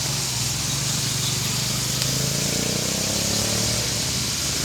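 Steady low motor hum under a constant hiss.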